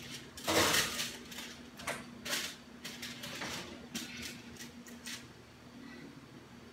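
A foil-covered glass baking dish being put into a wall oven: a scrape as it slides onto the oven rack about half a second in, the loudest sound, then a series of light clicks and knocks from the rack and dish. A faint steady hum runs beneath.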